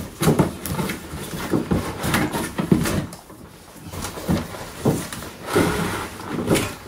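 Cardboard box and packaging being handled, a string of short scrapes, slides and knocks as a toy car is worked out of its box, with a quieter stretch midway.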